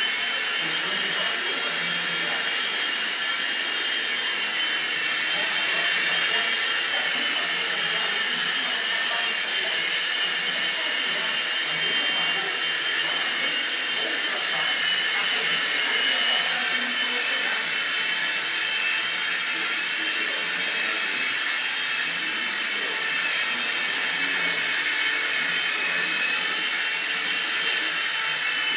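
Swift mini RC helicopter in flight: its small electric motors and twin rotors give a steady high whine whose pitch wavers slightly as it hovers and moves.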